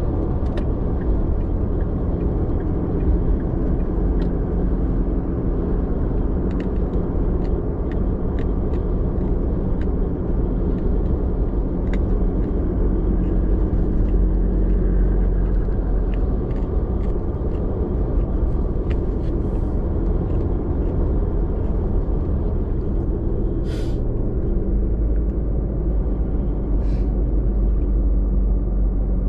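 Steady engine and road rumble of a car driving along, heard from inside the cabin, with scattered light clicks and two brief hissing sounds near the end.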